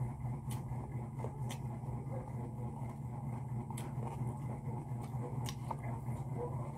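A steady low machine hum, with a few faint short clicks.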